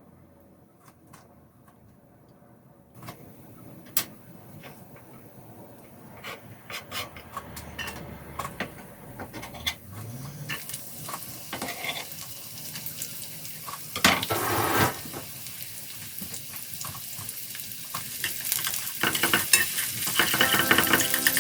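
Food sizzling in a frying pan as it is stirred, with clicks and scrapes of a utensil against the pan. Nearly quiet at first with a few clicks; the sizzle starts about halfway and grows louder toward the end.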